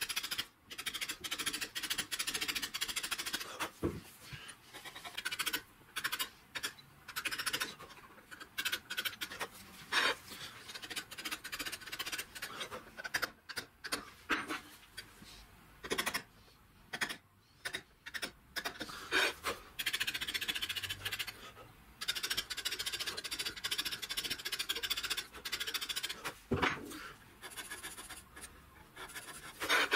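Hand-carving chisel scraping into Welsh slate in many short, repeated strokes as letters are cut, with a few sharp clicks among them.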